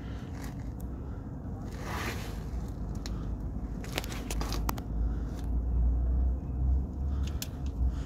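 Rustling and scraping handling noise as the phone is moved about and wiring is handled. There are a few sharp clicks around the middle and a low rumble in the second half.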